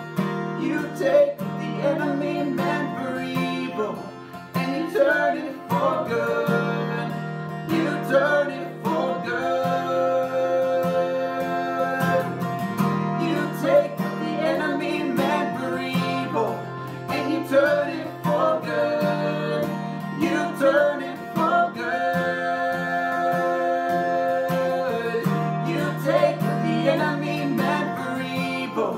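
Acoustic guitar strummed steadily under a man singing a slow worship song, with a woman's voice joining in at times.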